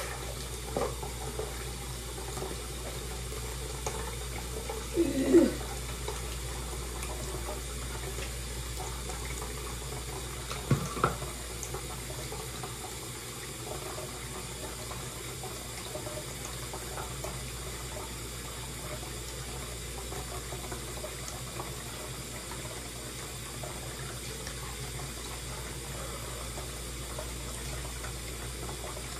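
Tap water running steadily into a sink, with a short louder sound about five seconds in and two brief knocks about eleven seconds in.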